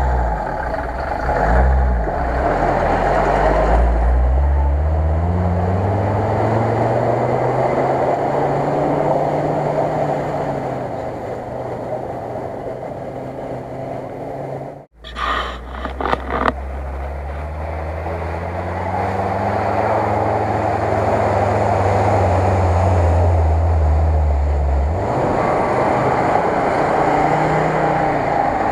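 UAZ-469 off-roader's engine revving and pulling under load as it drives through shallow water. The engine note rises near the start and runs steady later. The sound drops out briefly about halfway through, with a few clicks after it.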